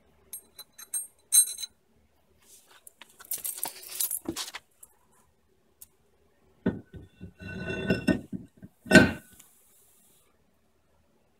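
Light metal clinks early on, then a rustle, then a brake rotor clanking and scraping as it is slid over the wheel studs onto the hub, with a brief metallic ring. The loudest clank comes a couple of seconds before the end as the rotor seats.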